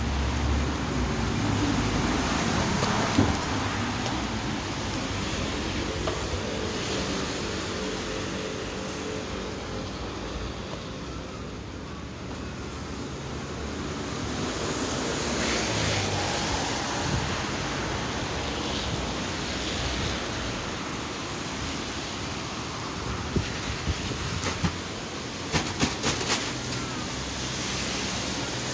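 Steady wash of rain and road traffic on wet streets, with a few sharp clicks near the end.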